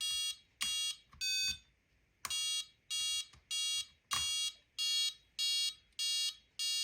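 Killa RC kill switch beeping a train of short electronic beeps, a little under two a second with a short pause about two seconds in, one beep early on higher in pitch than the rest. The beeps come as its number one dip switch is cycled to set the low-voltage cutoff to 6 volts.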